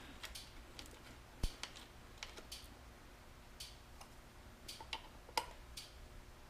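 Faint, irregular metal clicks of a 5 mm hex key working as rear spool sliders are tightened, with one louder click about one and a half seconds in.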